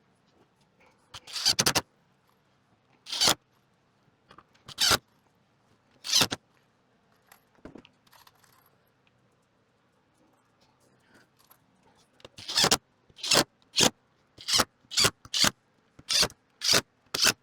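Woodworking on a wooden roof frame: short, sharp rasping bursts, four spaced out over the first few seconds, then a quicker run of about ten at roughly two a second near the end.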